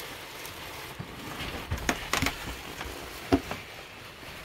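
A few short, sharp knocks and clatters with light rustling from objects being handled in bins and drawers; the loudest knock comes near the end.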